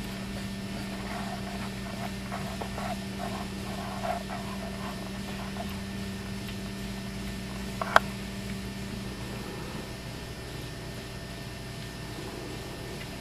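Electric treadmill running at a slow walking speed: a steady motor hum with belt noise, light irregular tapping in the first several seconds, and one sharp click about eight seconds in.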